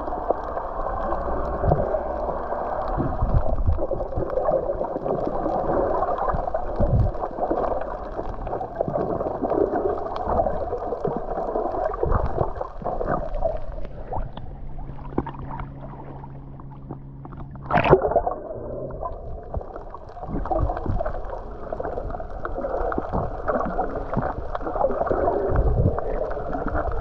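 Muffled water sloshing and gurgling around a camera held underwater while snorkeling, with scattered low knocks. There is one brief sharp splash about two-thirds of the way through.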